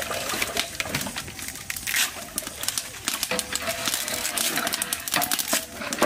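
A perforated metal skimmer stirring sugar syrup in an aluminium pot, clinking and scraping against the pot in quick irregular clicks, with syrup pouring back off the skimmer.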